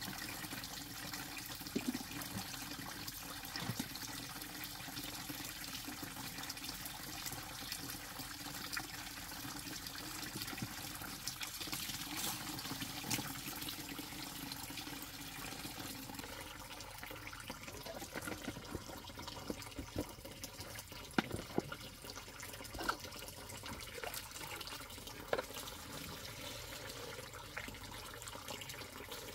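Water running steadily, with scattered light knocks and clicks; a few sharper knocks come about two-thirds of the way through.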